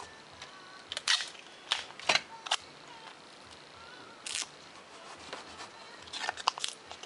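Tape being pressed onto a small foam-board piece and the piece handled on the work mat: short scratchy crackles and rustles, a few spaced out and a quick run of them near the end.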